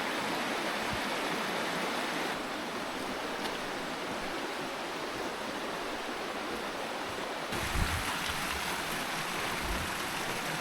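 A mountain creek running and splashing over small cascades, a steady rush of water. Its tone shifts abruptly twice, and a couple of low thumps come near the end.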